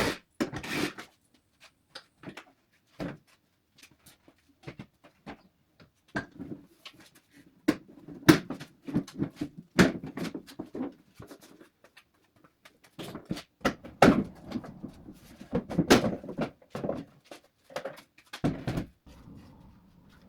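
Irregular knocks, clunks and clicks of car suspension parts and hand tools being handled in a garage, in short bursts broken by sudden cuts to silence.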